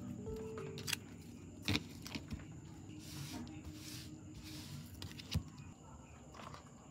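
Quiet room tone with a few scattered sharp taps and two soft rustles, like small objects being handled.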